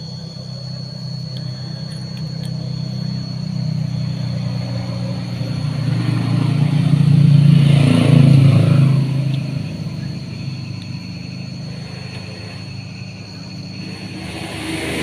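A motor vehicle passing on the road: a low engine drone that builds to its loudest about eight seconds in, then fades.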